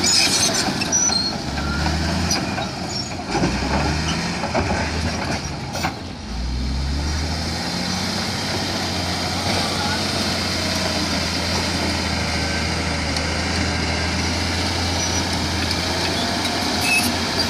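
Komatsu D155A bulldozer's diesel engine running under test after a no-start repair; its low note shifts up and down several times in the first few seconds, then settles into a steady run.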